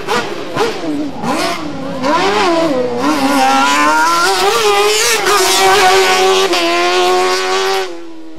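Race car engine revving up and down repeatedly as the car works through a cone slalom, then held at high revs before it drops away sharply near the end.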